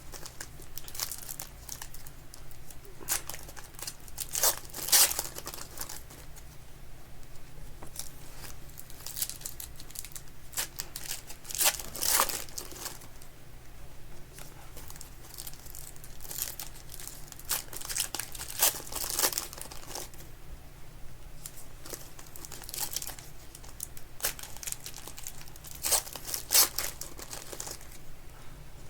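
Football trading-card pack wrappers crinkling and tearing as packs are ripped open. It comes in irregular bursts a few seconds apart.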